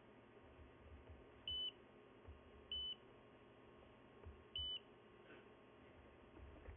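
Three short, high-pitched key beeps from a FNIRSI 2D15P handheld oscilloscope, spaced a second or two apart, as its buttons are pressed.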